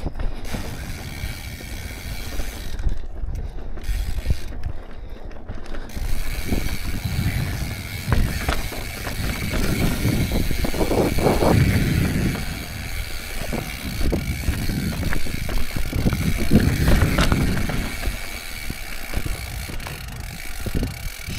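Mountain bike coasting down rough rock: the rear hub's freehub ratchet buzzing, with chain and frame clattering and tyres rumbling over the bumps, growing louder and busier about six seconds in.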